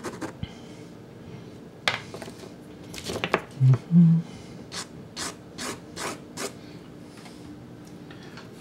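Soft Sennelier pastel stick rubbing and scratching across Sennelier La Carte pastel card in short strokes, with a quick run of about six strokes in the middle. Two brief low thumps a little under four seconds in are the loudest sounds.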